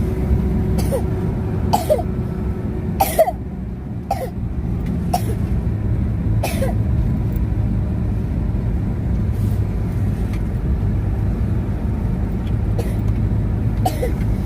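A child coughing in short single coughs, about six in the first seven seconds and one more near the end, over a steady low engine hum. It is a flare-up of his cough after catching cold.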